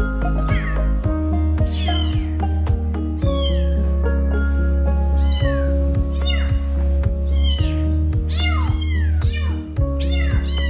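Two young kittens meowing again and again, high-pitched calls that fall in pitch, crying for their mother, over background music with a steady bass.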